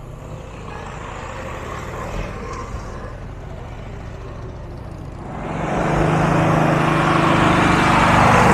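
Engine of a motor trike getting louder as it approaches and passes close, starting about five seconds in. Before that, a lower engine rumble from a classic car rolling slowly past.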